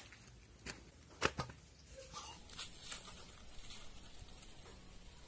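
Hands pulling ripe jackfruit bulbs free of the rind and fibres: three short snaps in the first second and a half, then faint rustling.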